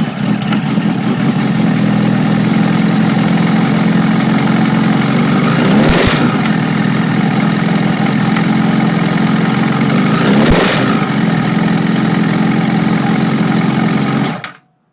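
Honda CBR1000 inline-four engine idling, heard close to the air box, with two brief throttle blips about six and ten and a half seconds in. Under throttle it quickly starts rapping, a knock of unknown cause that the owner wonders may come from the valves or the crank. The sound cuts off shortly before the end.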